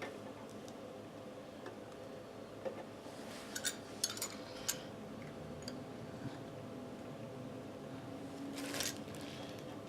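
Hands working on computer parts: a few light clicks and taps about three to five seconds in, and a short scraping rustle near the end, over a faint steady hum.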